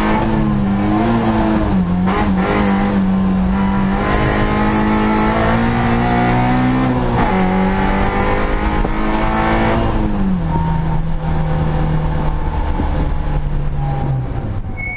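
Peugeot race car engine at high revs, heard from inside the cabin. Its pitch dips briefly about 2 and 7 seconds in with gear changes. About 10 seconds in it settles to a lower, steady note as the car eases off.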